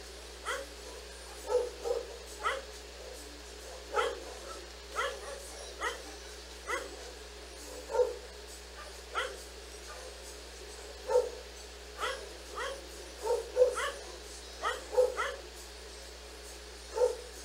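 A dog barking repeatedly: short, sharp barks at an uneven pace of roughly one a second, now and then two or three in quick succession.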